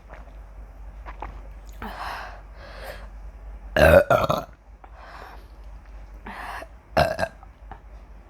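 A woman burping after drinking soda: a loud, pitched burp about four seconds in, the loudest sound, and a shorter one about seven seconds in, with softer breathy sounds between.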